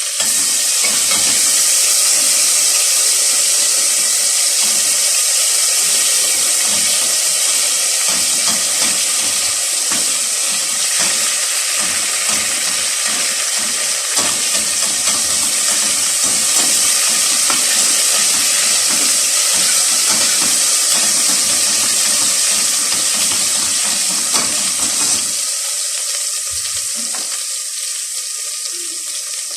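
Garlic frying in a little hot oil in a pan: a loud, steady sizzle that eases off slightly near the end.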